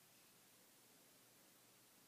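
Near silence: faint room tone hiss.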